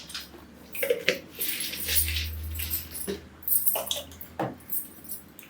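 Small plastic food containers being handled: a series of sharp clicks and knocks with short rattling rustles, as lids are opened and dry contents shift, over a low steady hum.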